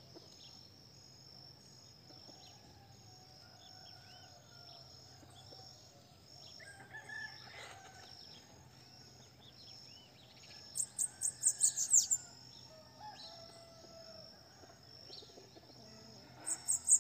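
Caged bananaquit singing twice, each song a loud, high, fast run of notes lasting about a second, about eleven seconds in and again near the end; the bird is coming out of molt and starting to sing again. Under the songs are faint calls of other birds and a steady high insect whine.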